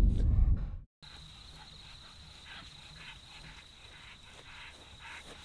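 A loud low rumble for about the first second cuts off abruptly. Then an insect trills faintly and steadily on one high thin note, with soft scattered rustles.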